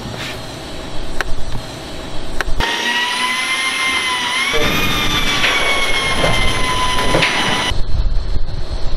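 A few sharp metal taps, then an electric drill's motor whining steadily for about five seconds, its pitch dipping briefly as the bit takes load, before it cuts off.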